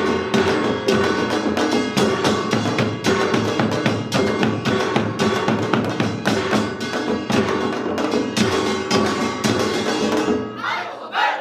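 Korean samul nori percussion ensemble playing a fast, dense rhythm on janggu hourglass drums and buk barrel drums over ringing brass gongs. The drumming stops about ten and a half seconds in, and brief shouting voices follow.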